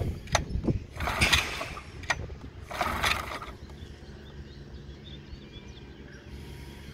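Small outboard motor being pull-started: the recoil starter cord is yanked twice, about two seconds apart, each a rasping pull of about half a second, and the engine does not catch. It is slow to start, which the owner puts down to its not having been run in a while.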